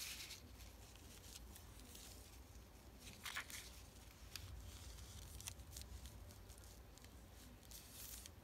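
Faint rustling of paper and a doily being slid into place and pressed flat by hand, with a few soft scattered taps, one a little louder about three seconds in.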